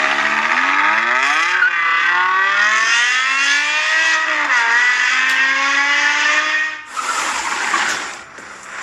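Performance car engine accelerating hard through the gears. Its pitch climbs, drops at each upshift (twice) and climbs again, then cuts off about two seconds before the end into a hiss-like noise.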